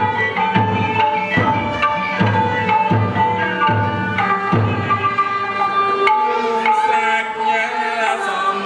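Cambodian pinpeat orchestra accompanying classical dance drama: a sustained melody over regular low drum strokes, a little more than one a second, which drop out about four and a half seconds in while the melody carries on.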